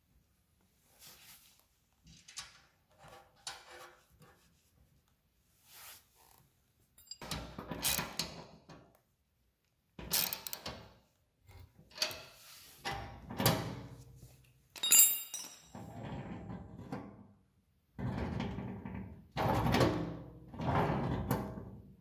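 Hands working the metal rate-control lever and adjustment plate of a tow-behind drop spreader's hopper: scattered light clicks at first, then clinks and rattles of metal parts and fasteners being handled. These grow louder and busier in the last few seconds.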